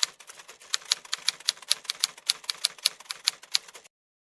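Typewriter sound effect: rapid, even clacking of keystrokes, about five a second, that cuts off abruptly near the end.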